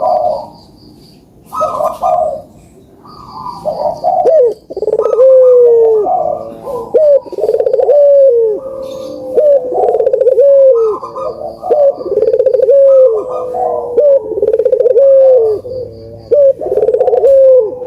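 Puter doves cooing: a few short separate coos, then from about four seconds in a steady run of coos, each ending in a falling slur, roughly one a second. This is calling played as a lure to get quiet puter doves to start cooing.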